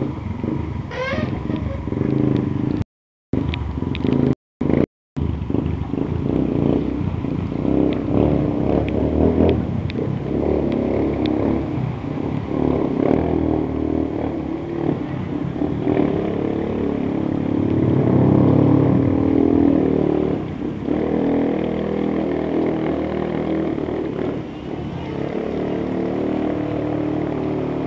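Street traffic wading through a flooded road: car and motorcycle engines running steadily as tyres push through floodwater. The sound cuts out briefly three times, about three to five seconds in.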